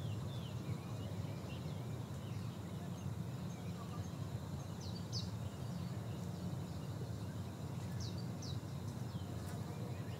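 Outdoor hillside ambience: a steady low background hum, with faint, short, high bird chirps about five seconds in and twice more near the eight-second mark.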